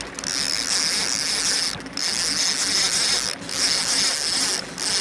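Trolling reel's drag and clicker ratcheting steadily as a hooked muskie runs and strips line off the reel, with a few brief breaks.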